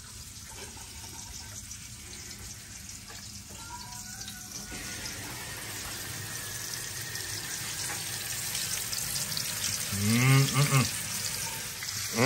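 Hot oil sizzling and crackling in a cast-iron skillet as flour-breaded pieces of otter meat fry, slowly growing louder as the skillet fills. A brief voice is heard near the end.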